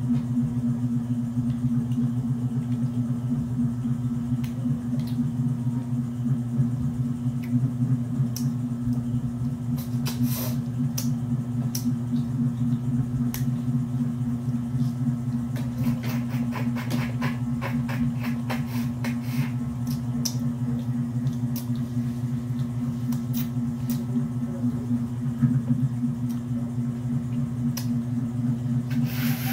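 Cooked mud crab shell being cracked and peeled by hand and eaten: scattered small cracks and clicks, busiest about halfway through. A steady low hum runs underneath throughout.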